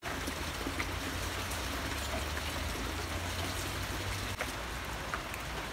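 Water running steadily from a tank tap into a plastic bucket, with a few faint ticks.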